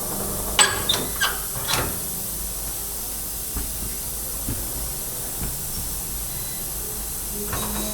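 Steady hiss of compressed air while the new motorcycle tyre is inflated onto its rim to seat the beads. A few sharp metallic clicks come in the first two seconds.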